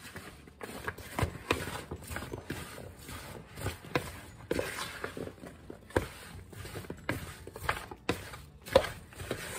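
A spoon tossing cut apple slices with cinnamon and cornstarch in a plastic mixing bowl: irregular knocks and scrapes of the spoon against the bowl, one or two a second.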